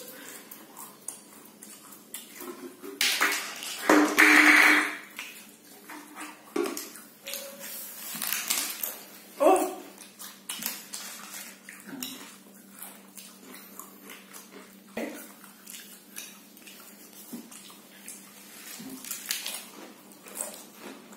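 Pringles crisps crunching and crackling on plastic plates as they are eaten straight off the plate without hands, in many short irregular crackles. A few brief vocal cries break in, the loudest about four seconds in.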